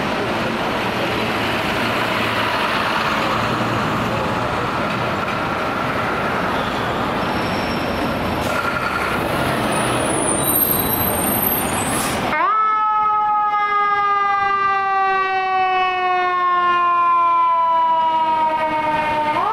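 Street traffic with a heavy truck passing. About two-thirds of the way through, a fire engine's siren cuts in, wailing with its pitch falling slowly over several seconds, then jumping back up near the end.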